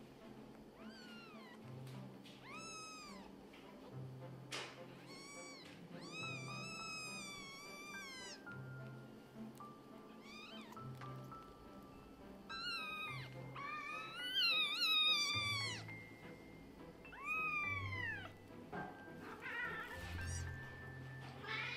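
Newborn kittens mewing: a string of thin, high cries that rise and then fall, some short and some drawn out, several overlapping in a louder cluster about two-thirds of the way through. Soft background music plays under them.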